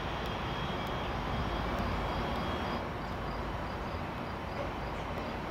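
Steady outdoor rumble of rail-station and traffic noise, with a faint high tone that stops about three seconds in, where the overall level drops slightly, and a faint high chirp repeating evenly after it.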